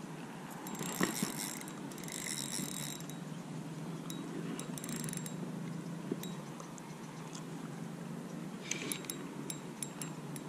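Spinning reel being cranked in short spells, its gears giving a rapid clicking each time the handle turns.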